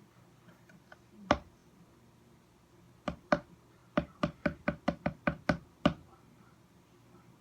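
Sharp knocks of a hard object on a hard surface: a single knock, then a pair, then a quick run of about nine at roughly five a second.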